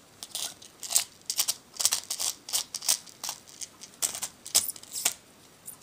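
Light clicks and scrapes of a spy pen's metal and plastic parts being twisted and screwed together by hand, an irregular run of small ticks, a few each second.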